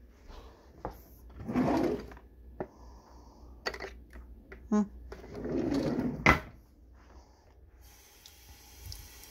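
A kitchen cutlery drawer pulled open and rummaged, with metal utensils rattling and clinking in bursts and a sharp knock about six seconds in. Near the end the faucet is turned on and water runs into the sink with a steady hiss.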